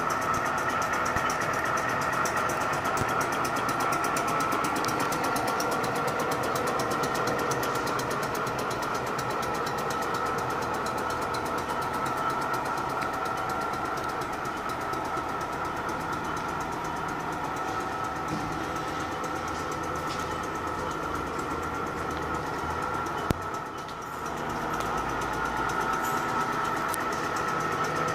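PAMA OMA 805 gear shaping machine running, its drive and crank-driven cutter ram giving a steady mechanical running noise with a constant high tone. A single sharp click comes near the end, followed by a brief dip in level.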